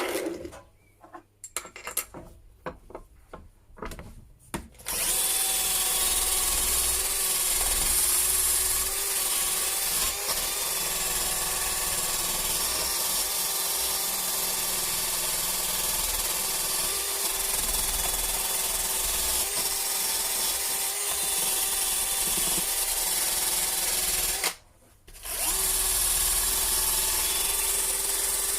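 Power-tool wire wheel spinning against rusty engine-mount and gearbox-mount bolts, stripping off the rust. First a few clicks and knocks of handling. About five seconds in the tool starts and runs steadily with a whine, stops for a moment near the end, then starts again.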